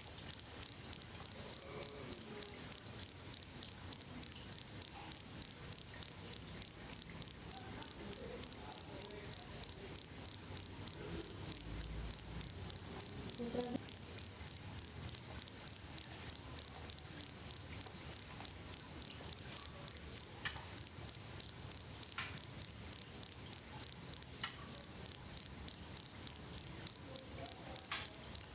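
Cricket chirping: a single high-pitched tone pulsed evenly several times a second, going on without a break.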